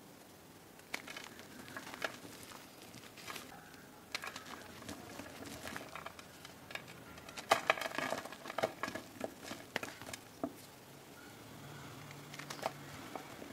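Hand crushing blocks of dyed gym chalk reformed with cornstarch paste, with scattered crunches and crumbs falling onto a pile of powder. A dense run of crunching about halfway through is the loudest part.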